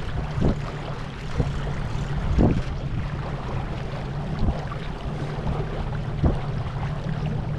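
Electric trolling motor running steadily, a low even hum under the rush of water and wind, with a few short low thumps.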